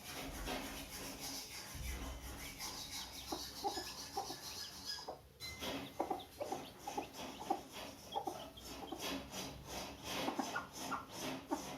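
Hen clucking in a busy run of short calls, with chicks cheeping faintly.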